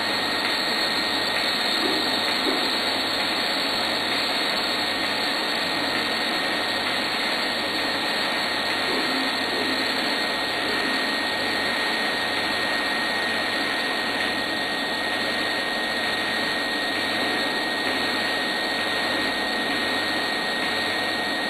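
Robotic pipe-welding arc, a steady dense hiss with a thin constant tone and a faint low pulse about once a second.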